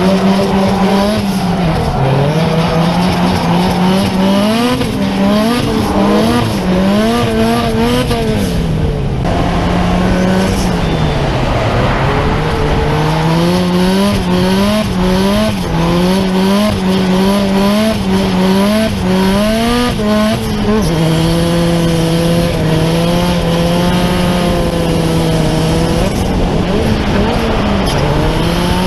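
A car engine revving hard at a drift event, its pitch climbing and dropping again and again with the throttle, held steady for a few seconds in the latter part, with tyres squealing under it.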